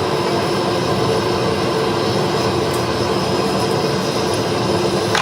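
Loud, steady running noise of a machine, with a constant hum and a high whine held throughout, and a short click at the very end.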